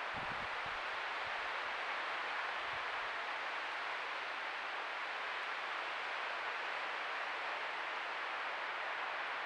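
Steady even hiss of a trail camera's microphone recording noise, with a few soft low thumps in the first three seconds.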